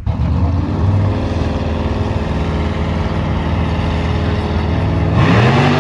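Car engine running at a steady low speed, then revving up sharply about five seconds in, its pitch climbing.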